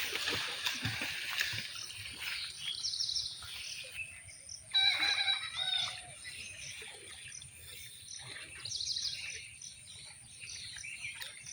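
Birds chirping and calling in the open, with short repeated chirps and a louder call about five seconds in.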